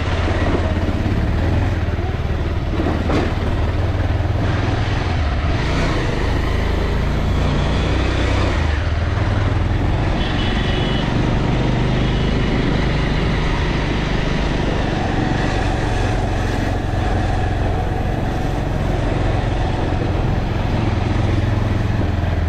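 Motorcycle engine running as the bike is ridden, over a steady low rumble.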